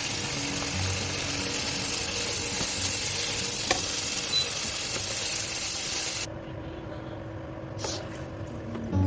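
Food sizzling and frying in a pan while it is stirred, a steady hiss that cuts off suddenly about six seconds in. A quieter stretch follows, with a single knock near the end.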